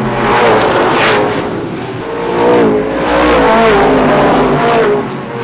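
Race car engines running hard, their pitch rising and falling over a second or so at a time as the cars rev and pass, with short dips in loudness about two and five seconds in.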